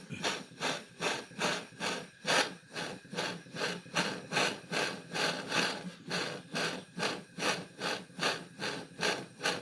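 Steady back-and-forth scraping by hand, about three strokes a second.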